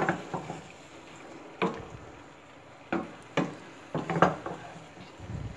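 A spatula knocking and scraping against a stainless steel pot as chicken and vegetables are stirred: irregular clacks, about seven in all, the loudest a little after four seconds in.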